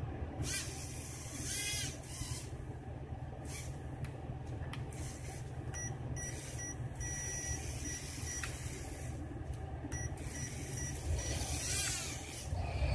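The small electric motor and propeller of a homemade egg-crate biplane buzz steadily as it flies around a small room. A sweeping whoosh sounds as it passes close, about two seconds in and again near the end.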